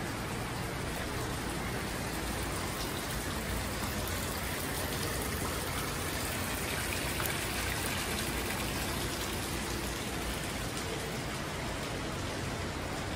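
Water from a small rock fountain splashing and pattering onto stones and pebbles, a steady wash that is loudest around the middle.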